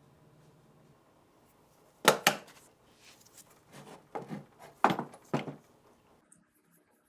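MG3 machine gun parts being handled: a series of sharp metallic knocks and clatters, two close together about two seconds in and several more over the next three seconds.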